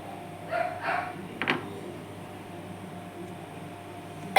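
Kitchen utensil handling sounds while spices go into the pot: two short scrapes, then a sharp tap about a second and a half in, over a steady low hum.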